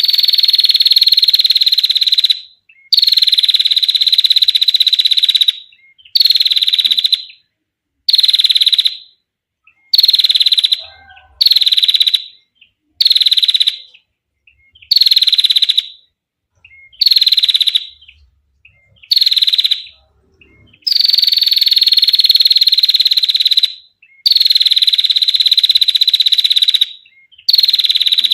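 Female prinia (prenjak) giving its long, fast rattling trill in repeated bouts of about one to three seconds, separated by short pauses; each bout starts a little higher and quickly settles to a steady pitch.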